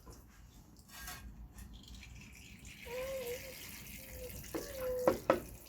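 Engine oil running out of a Hyosung Comet 125cc motorcycle engine as a faint steady trickle, with short wavering squeaks and two sharp metallic clinks about five seconds in.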